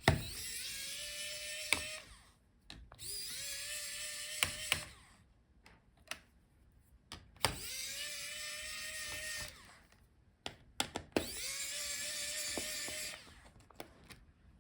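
Small electric screwdriver spinning in four separate runs of about two seconds each, its motor pitch rising quickly and then holding steady, as it backs out the motherboard's screws. Light clicks of small parts between the runs.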